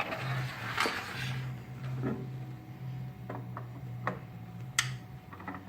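Scattered metallic clicks and knocks, about one a second, as parts of a 3D Xtreme S key-cutting machine are handled and fitted by hand.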